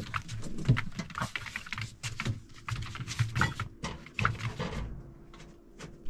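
Irregular clattering and knocking of household items being handled: containers and cookware bumped and moved about. A faint steady hum joins about halfway through.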